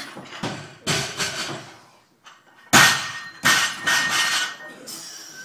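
Loaded Olympic barbell with bumper plates clanging and rattling in several sharp impacts. The loudest comes about three seconds in and leaves a ringing metallic tone.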